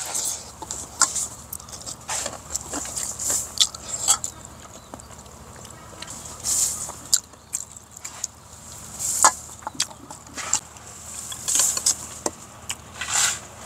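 Kitchen food preparation: irregular clicks and knocks of utensils against dishes, with short scraping, hissing swishes scattered throughout.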